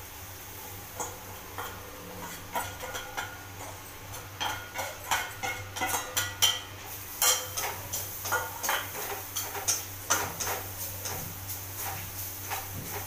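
Steel kitchen utensils clinking and clattering against each other in a run of irregular, sharp clinks with short ringing, busiest in the middle, over a steady low hum.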